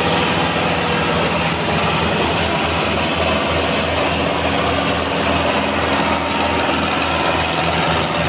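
Sonalika DI-750 III tractor's diesel engine running steadily with an even low throb while hauling a trolley loaded with straw.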